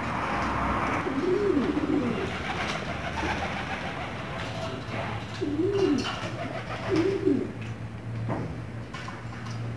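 Pigeons cooing: three short rise-and-fall coo phrases over steady background noise.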